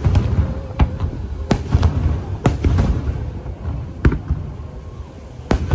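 Aerial firework shells bursting in a rapid series of sharp bangs, about five loud ones, over a continuous low rumble of further bursts.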